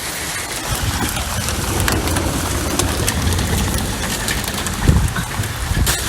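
Storm noise: a steady rush of wind and rain with heavy low rumbling, and a couple of sharp thumps near the end.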